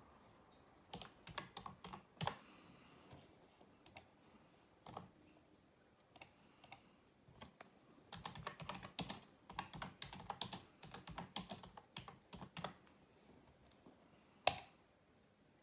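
Typing on a computer keyboard: irregular key clicks in short runs, densest in the middle stretch, then one sharper single click near the end.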